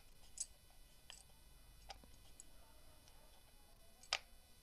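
Near silence broken by a few faint, sharp clicks from dough being rolled out with a wooden rolling pin on a wooden board, the loudest about four seconds in.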